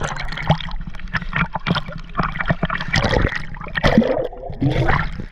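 Water sloshing, gurgling and splashing against an action camera's microphone as it dips below the sea surface, with bubbles rushing past in irregular clicks and gurgles. A muffled wavering sound rises and falls about four seconds in.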